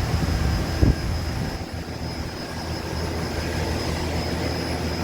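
Steady machine hum with a thin high whine from a powered-up Okuma CNC turning center idling, its spindle stopped. A single short thump sounds about a second in.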